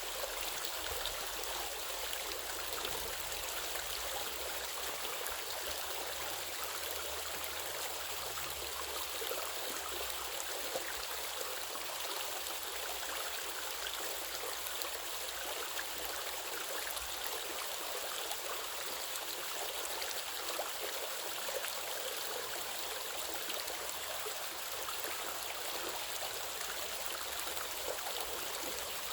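Waterfall: a steady rush of falling and running water, an even hiss with no breaks.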